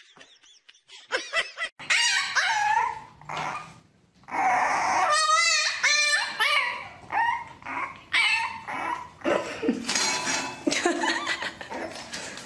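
A puppy whining and yelping in many short cries that waver up and down in pitch.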